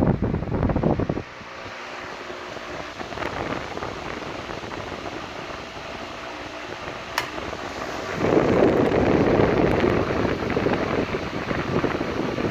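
KOENIC electric fan running, its rush of air blowing on the microphone. The rush drops sharply about a second in, leaving a quieter steady hum. After a single click it comes back louder, about eight seconds in.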